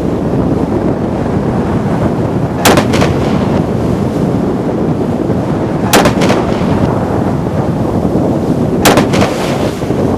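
Steady rush of wind and sea noise on the microphone, broken three times, about three seconds apart, by a loud sharp bang with a smaller crack just after it.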